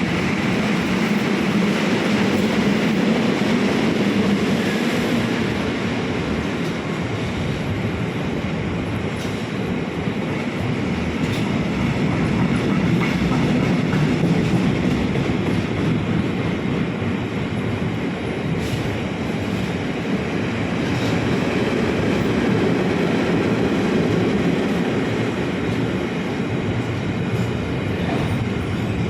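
A train passing on the tracks: a steady rolling noise of wheels on rail, with a few faint clicks.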